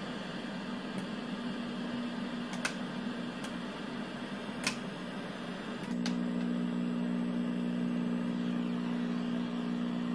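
Low steady buzz from the speaker of a 1983 RCA ColorTrak TV fed by a test-pattern generator. The buzz grows louder and changes about six seconds in, as the pattern switches to colour bars. A few sharp clicks from the generator's buttons come before the change.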